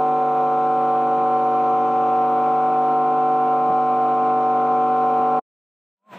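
A loud, unchanging drone of several held tones at once, cutting off suddenly about five seconds in.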